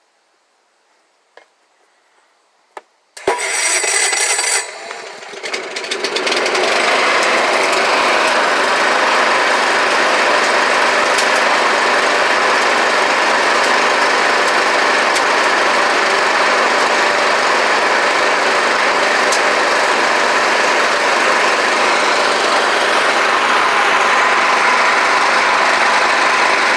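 Yardman self-propelled lawn mower started with its electric starter through a four-post riding-mower starter solenoid. After two faint clicks, the starter cranks about three seconds in, and the engine catches within a couple of seconds and then runs steadily and loudly.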